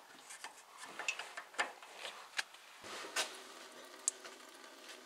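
Light metal clicks and taps as a tool turns open the radiator drain screw, then, from about three seconds in, a faint steady trickle of engine coolant running out through the drain hose into a plastic bucket.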